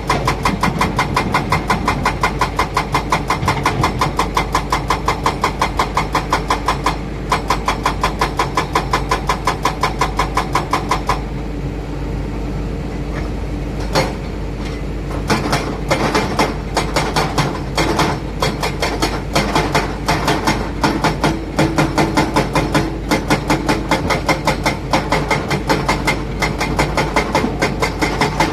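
Heavy diesel machinery running, with an even, rhythmic knocking of a few beats a second over the engine hum. The knocking drops out for a few seconds about halfway through, leaving only the steady engine, then starts again.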